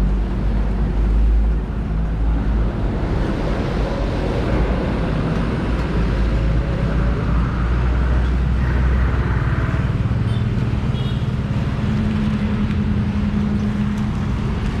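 A motor vehicle engine running close by, a steady rough rumble that changes pitch about three seconds in and again near ten seconds in.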